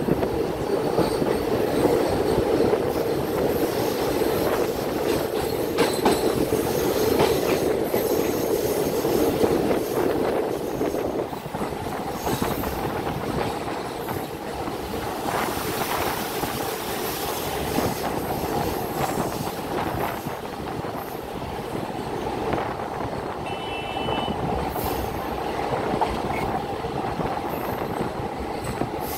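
Passenger train running, heard from aboard: a steady rumble of wheels on rails with scattered clicks, easing a little about eleven seconds in. A brief high wheel squeal comes near the end.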